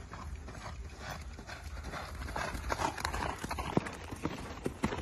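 Horse's hooves striking a sand arena: an uneven run of knocks, sharper and louder in the second half as the horse comes close.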